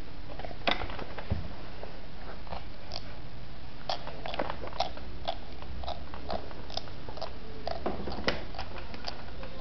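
Teeth grinding against each other in a teething mouth: short, sharp grating clicks at an irregular pace, about one or two a second, over a steady background hiss.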